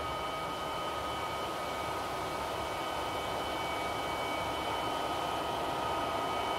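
MTH model freight train with diesel locomotives running on the layout track: a steady rolling hum of wheels and motors with a thin whine over it, growing slightly louder towards the end as the train comes closer.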